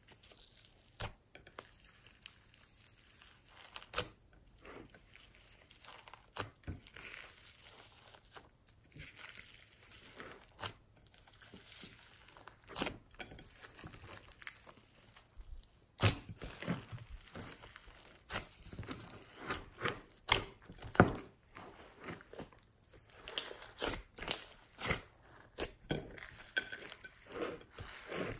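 Slime being squeezed, stretched and kneaded by hand, giving irregular sticky crackles, pops and crunches that grow busier and louder about halfway through.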